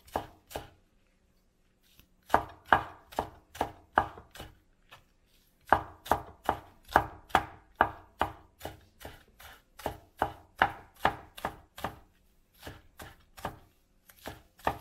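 Chinese cleaver chopping scallions on a wooden cutting board: runs of sharp knocks, about three a second, with pauses about a second in and again around five seconds.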